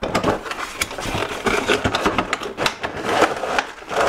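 Cardboard box and clear plastic blister tray being handled: a dense run of crinkling and scraping as the tray is slid out of the box.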